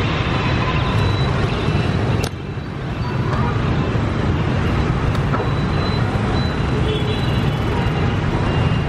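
Steady street traffic noise from a busy road full of motorbikes, with a sharp click and a brief drop in the noise about two seconds in.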